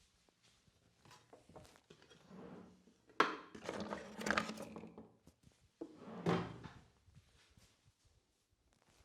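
A sharp thump about three seconds in, followed by about two seconds of rustling and rubbing, then a second burst of rustling about three seconds later.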